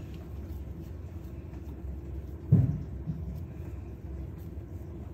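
Hands working dough on a work surface, with one dull thump about halfway through over a low steady rumble.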